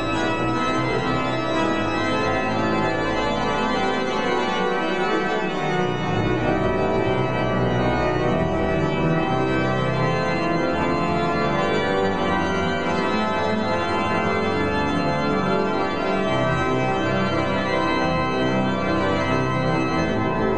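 The Christian Müller pipe organ of St. Bavo's Church playing full, sustained chords, with the bass notes changing about four to six seconds in. The chords ring in the church's large reverberant nave.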